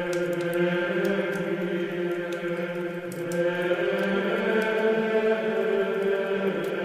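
Intro music of chant-like voices holding long notes together, moving to new notes about three seconds in.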